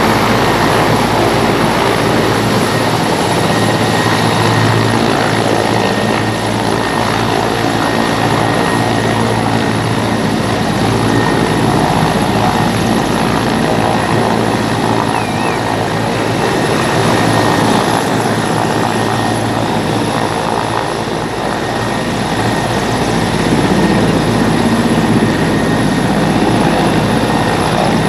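Army Mil Mi-17 transport helicopter hovering low, its main rotor and turbine engines running loud and steady as its downwash is used to blow the water off a wet cricket ground.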